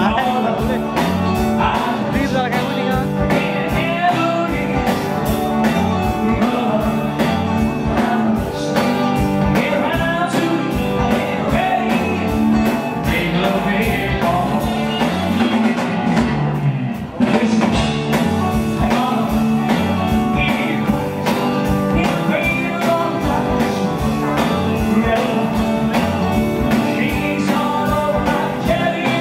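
Live rock band playing a fast, steady beat on drum kit, electric guitar, bass and keyboards, with a male lead singer over it. The band drops out for a moment a little past halfway, then comes straight back in.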